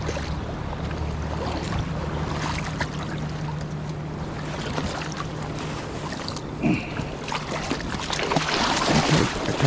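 River water rushing over shallow gravel with a steady low hum under it, then splashing and scraping on stones in the last few seconds as a hooked steelhead is slid through the shallows onto the rocky bank.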